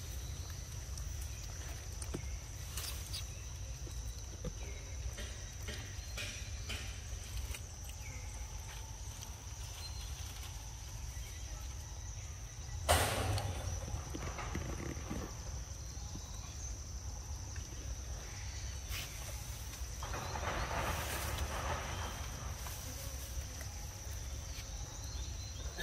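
Outdoor ambience with a steady low rumble and a constant high, thin whine. There is one sharp knock about 13 seconds in, and a short spell of rustling about 20 seconds in.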